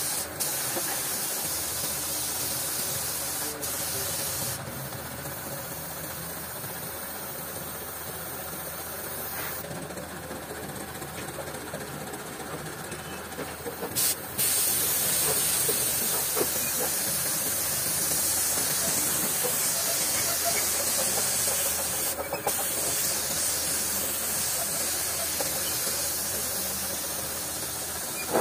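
Gravity-feed spray gun spraying a silver base coat with compressed air: a steady hiss that weakens for several seconds in the middle and comes back stronger about halfway through.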